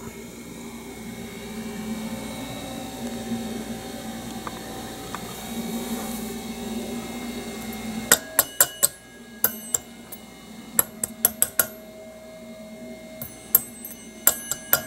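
The brass gong bell of a Westinghouse elevator indicator, tapped by hand again and again from about halfway in, in quick clusters. Each tap is a sharp ping that rings on as a clear chime, the Westinghouse 'dinner bell' sound. Before the taps there is only a steady low refrigerator hum.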